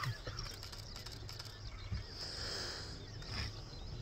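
Outdoor grassland ambience: small birds chirping and insects calling, over a low rumble.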